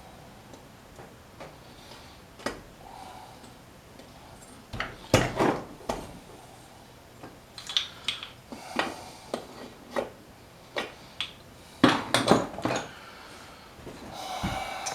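Metal tools and small engine parts clinking and knocking against each other on a workbench: a scatter of sharp clinks, with busier clusters about a third of the way in and again near the end.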